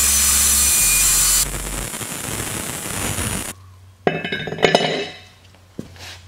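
Angle grinder cutting through steel in a hiss with a spray of sparks, cutting off an old spare-tire mount; it stops about a second and a half in and winds down. From about four seconds in, several sharp metal clinks and knocks as the steel mount tube is set on the spare wheel.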